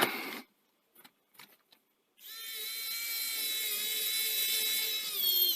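A few faint clicks, then a small electric screwdriver runs for about four seconds, its motor whining steadily as it drives in a screw, the pitch dipping and wavering near the end.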